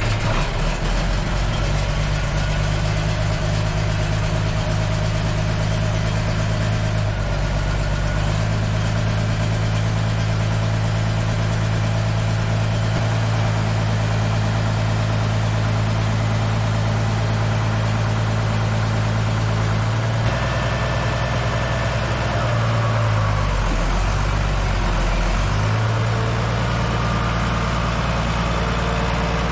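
A 1983 Komatsu D41A bulldozer's diesel engine catches right at the start and runs at a steady idle. About twenty seconds in, the engine note shifts and dips a few times under hydraulic load as the blade is lifted on its freshly repacked cylinders.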